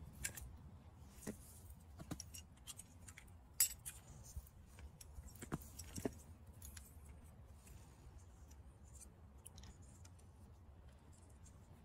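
Faint clicks and clinks of a metal sprinkler head and its PVC fitting being handled while a roll of thread-seal tape is wrapped onto the threads. The sharpest clicks come about three and a half and six seconds in, and it goes quieter in the second half.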